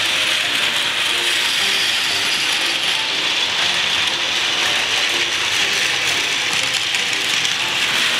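Several Plarail 100 series Shinkansen toy trains running at once on plastic track: the steady whirring clatter of their small battery motors and plastic gearboxes.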